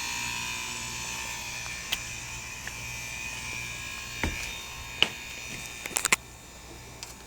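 Heat pump outdoor unit humming steadily with a high electrical whine after its fan has stopped, easing off slightly. A few sharp clicks and knocks sound through it.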